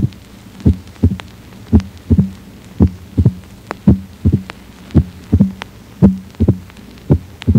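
Simulated heart sounds of mitral stenosis at the cardiac apex: a loud first heart sound and a second sound in each beat, about one beat a second, with the short, high-pitched mitral opening snap just after the second sound, its loudness being turned up and down. The opening snap is the sign of a stenotic mitral valve whose opening stops abruptly.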